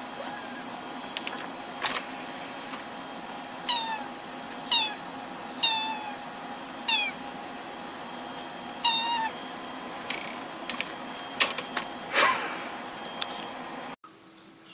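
Domestic cat giving five short meows that fall in pitch, about a second apart, over a steady hum, with a few sharp clicks.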